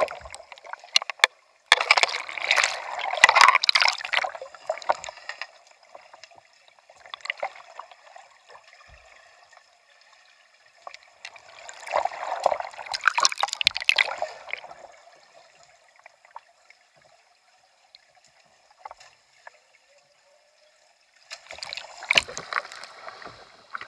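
Water splashing and bubbling around a kayak as it is rolled over and back up, heard from a camera on the deck that goes under the surface. There are three bursts of rushing water, each a few seconds long and about ten seconds apart, with faint gurgling between them.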